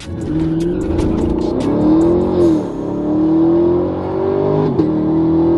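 Race car engine at full throttle, heard from inside the cabin, accelerating hard down the strip. The pitch climbs, drops sharply at an upshift about two and a half seconds in and again near five seconds, then climbs once more.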